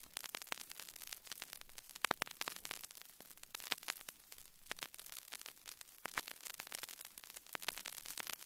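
Faint vinyl record surface noise: irregular crackle and pops from the stylus in a groove with no music yet, with a few sharper pops.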